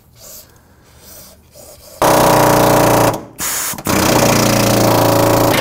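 Impact wrench hammering on a rusty rear suspension bolt at the trailing arm mount. It starts loudly about two seconds in, pauses briefly just after three seconds, then hammers on again.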